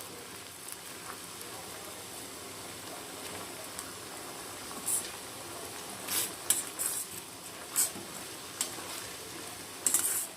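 Pot of neem kadha (neem leaves and stems, ginger and jaggery in water) boiling on the stove with a steady hiss. From about halfway through, a spoon scrapes and clicks against the pot several times as it is stirred.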